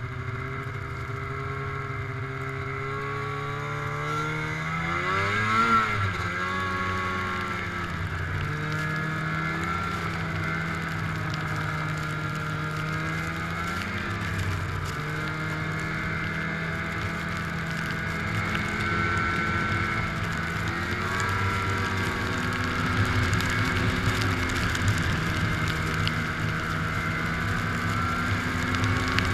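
2006 Arctic Cat Sabercat 700 snowmobile's two-stroke twin engine running under way, its pitch rising and falling with the throttle. The engine revs up sharply and drops back about five to six seconds in, the loudest moment.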